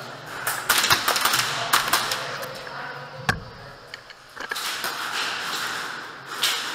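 Scattered sharp clicks and knocks, some in quick runs, from an airsoft player moving with rifle and gear through a plywood-walled indoor arena; one sharper knock a little past three seconds.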